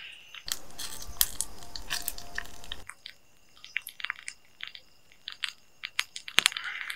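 Rustling for about two seconds, then scattered light clicks and taps: handling noise of objects being moved about.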